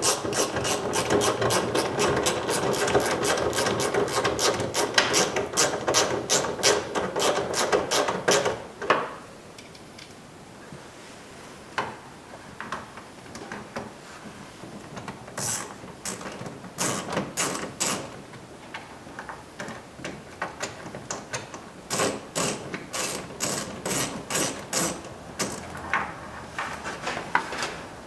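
Ratchet with a 7mm socket clicking as it drives the door panel bolts: a long run of quick clicks for about the first nine seconds, then shorter bursts of clicks as further bolts are snugged up.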